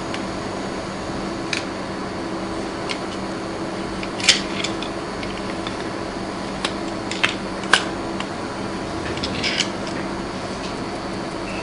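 Scattered clicks and taps of a polymer AK-47 lower handguard being handled and seated against the rifle's metal barrel and receiver, the sharpest about four and about eight seconds in, over a steady low hum.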